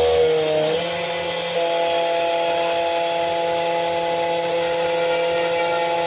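KNC 91 battery-powered automatic key-cutting machine running its cutter spindle while milling a brass key blade: a steady high whine with overtones. The pitch dips briefly just under a second in, then settles.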